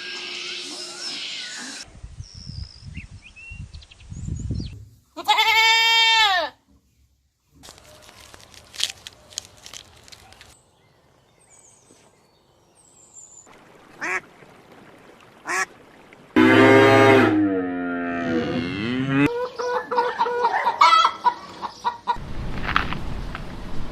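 Farm poultry calling in a run of short separate clips: clucking at the start, then several loud, drawn-out calls, one about five seconds in and a longer one that falls and rises in pitch near the end.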